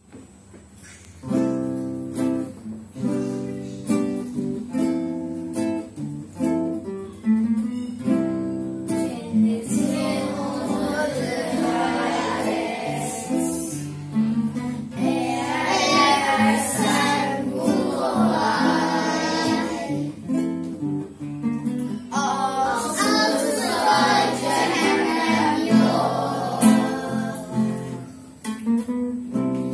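Acoustic guitar plays an intro of plucked chords. From about nine seconds in, a group of children's voices sings a song to the guitar accompaniment.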